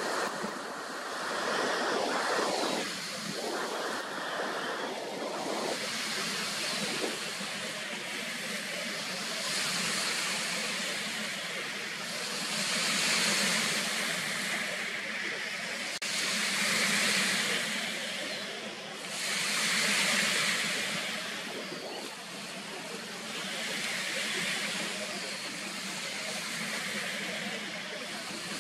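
Outdoor background noise: a steady rushing hiss that swells and fades every three to four seconds, with wind buffeting the microphone in the first few seconds.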